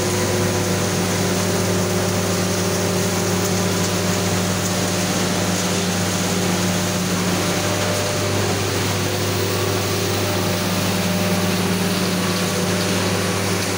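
Sawdust production line machinery running steadily: a constant low mechanical hum with a rushing hiss over it, with no change in speed or load.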